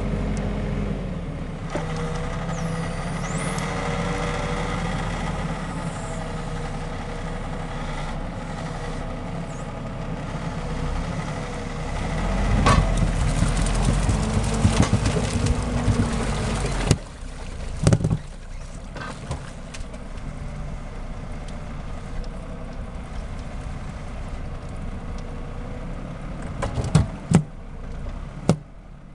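Valtra forestry tractor's diesel engine working under load as it drags a log-laden trailer through deep mud. Its note wavers up and down, grows louder for several seconds past the middle, then drops suddenly. A few sharp knocks come near the end.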